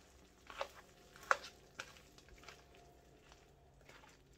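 Spoon stirring cooked prawns in a thick sauce in a frying pan, clicking against the pan three times in the first two seconds.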